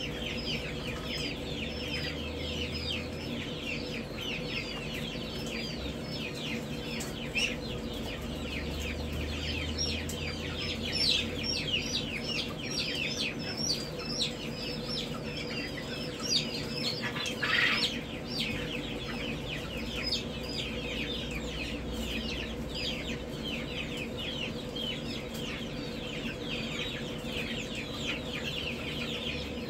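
Dozens of baby poultry chicks peeping without a break inside battery brooder cages: a dense chorus of short, falling, high chirps over a steady low hum. About two-thirds of the way in comes one short, louder burst of noise.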